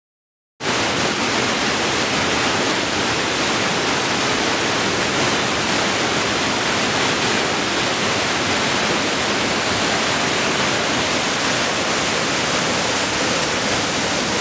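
Steady rush of whitewater rapids, cutting in abruptly about half a second in after silence.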